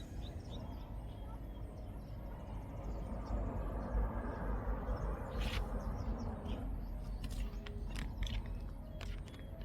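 Wind rumbling on the microphone, with a few faint bird chirps.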